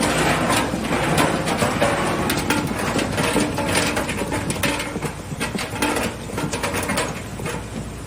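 Automatic packaging-line machinery running, with a steady low hum under dense, irregular clicking and clattering of its mechanisms; the sound eases off somewhat about five seconds in.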